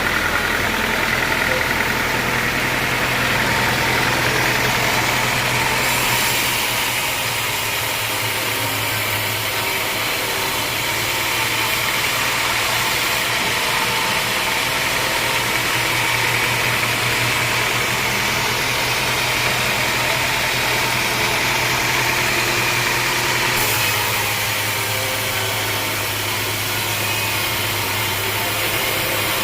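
Engine of a homemade sawmill running steadily under a continuous hiss, its note shifting slightly twice, about six seconds in and again near the end.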